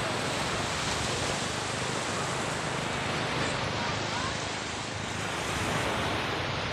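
Sea waves washing steadily on the shore, a continuous rushing noise.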